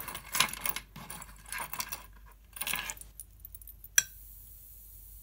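Metal key jangling and tapping against the glass of a plasma lamp, then a sharp tick about four seconds in as it touches the glass, followed by a steady high sizzle as the discharge arcs to the key.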